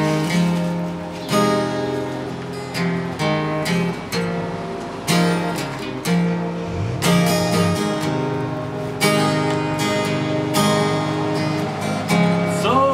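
Acoustic guitar strummed in chords with no singing, a strong strum about every second.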